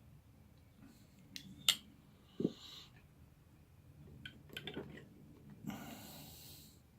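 Sharp metallic clicks and a knock from folding flipper knives being handled, with a cluster of small clicks midway and a short hiss near the end.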